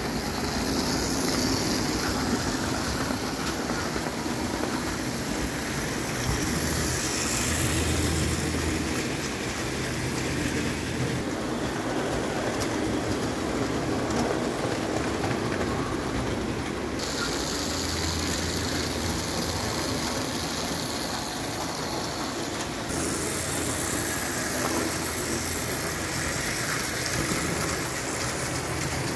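0 gauge tinplate electric toy train running on its track: steady wheel and track noise with a motor hum that grows louder twice, as the train comes close.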